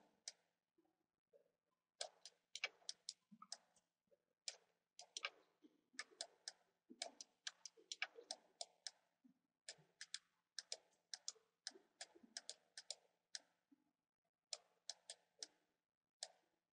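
Computer mouse clicking: irregular sharp clicks, often in quick pairs, several a second, with short pauses.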